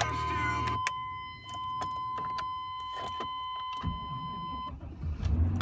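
A steady high electronic warning tone with regular ticks sounds while the key is on. About four seconds in the starter cranks the 1998 Chevrolet Silverado's 5.7-litre V8, the tone stops, and near the end the engine catches and settles into a steady run, firing right up on a cold start.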